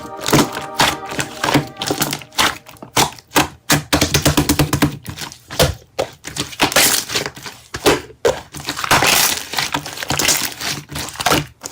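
Hands kneading and poking slime, giving a fast, irregular run of crackling clicks and squelches.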